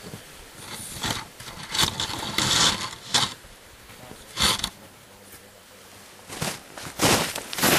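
Footsteps crunching in snow: a few irregular crunches, with a quieter stretch past the middle.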